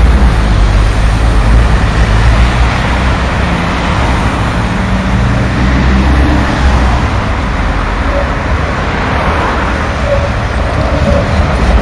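Steady road traffic noise, cars passing on a busy street, as a V3A-2S-93 articulated tram approaches along its track. A strong low rumble runs underneath throughout.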